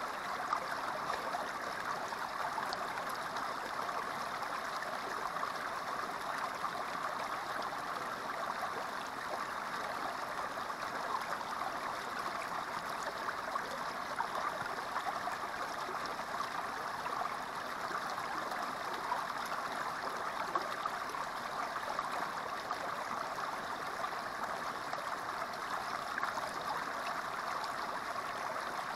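Small creek water spilling down a short rock chute into a shallow pool: a steady splashing and babbling that holds even throughout.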